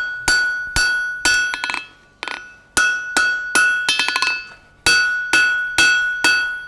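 Hand hammer striking red-hot steel bar on the edge of a steel anvil, about two blows a second with a short pause near the middle. Each blow leaves the anvil ringing with a clear high tone. The blows are knocking the corners of an upset bar end down at 45 degrees to forge it into an octagon.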